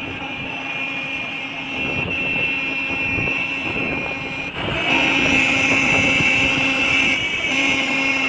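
Several motorcycles riding together in a group, their engines running with street traffic noise; the sound grows louder about halfway through.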